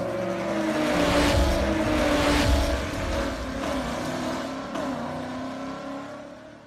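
Car engine sound effect for an animated logo intro: a loud rev and rush whose pitch slides slowly down, then fades out near the end.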